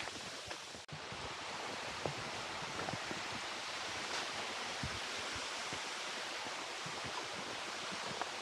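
Steady rush of falling water from a waterfall or stream in a rocky gorge, with a brief break just under a second in.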